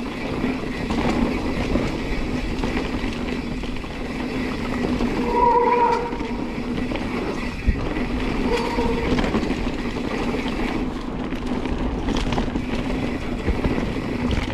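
Full-suspension mountain bike descending a dirt and gravel trail: tyres rumbling over the ground and the bike rattling over bumps, with a steady hum. Two short squeals cut through, the louder about five seconds in, and a single knock comes near the end of the second.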